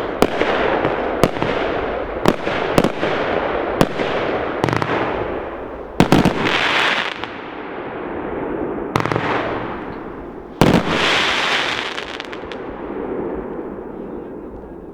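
New Year's fireworks going off: a quick run of sharp bangs for the first six seconds, then three louder bursts, the first and last followed by a couple of seconds of crackling, over a steady rumble of more distant fireworks.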